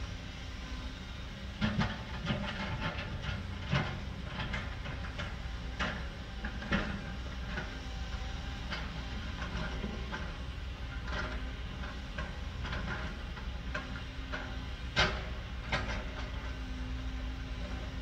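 Tracked excavator's diesel engine running steadily while its bucket moves rock, with irregular sharp clunks and clicks of stones knocking together and scraping. The knocks come in a cluster in the first few seconds and again, loudest, near the end.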